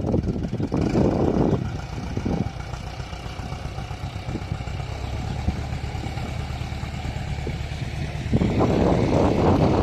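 Excavator engine running steadily, with louder, rougher stretches near the start and again near the end.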